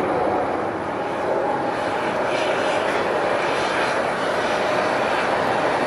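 Airliner engines running, a steady noise that holds level with no clear rise or fall.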